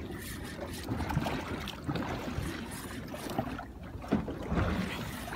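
Wind on the microphone and water lapping against a small fishing boat's hull, with a few irregular dull knocks.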